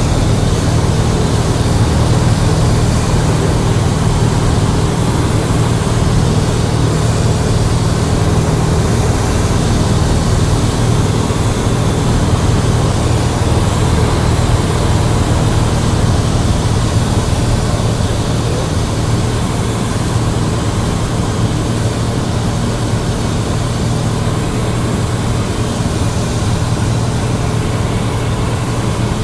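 Cessna 172's piston engine and propeller drone steadily in flight, heard from inside the cabin as a loud, even low hum with wind noise over it.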